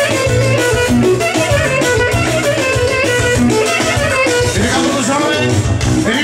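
Live band music, with a clarinet playing a melody over a steady accompaniment.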